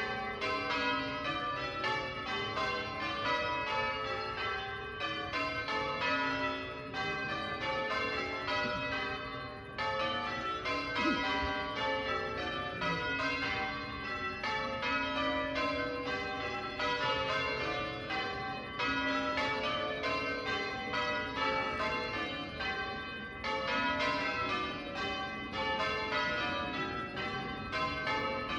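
Church tower bells being change-rung by a team of bell ringers: a steady, unbroken sequence of bell strokes, each ringing on and overlapping the next.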